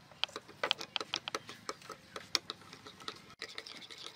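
Metal spoon clinking and scraping against a ceramic bowl while stirring a sauce, in quick, irregular clicks, several a second.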